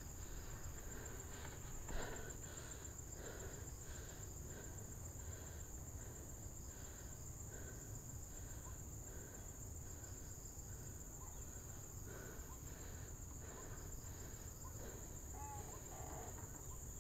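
Steady high-pitched drone of insects in the forest, over a low rumble, with faint soft pulses repeating about twice a second.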